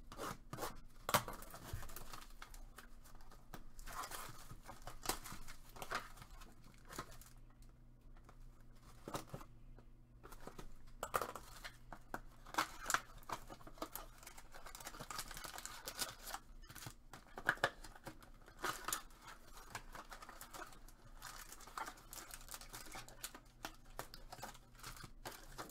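Plastic shrink wrap being torn and crinkled off a trading-card hobby box, in irregular crackles and sharp snaps, along with the cardboard box being opened and foil card packs handled.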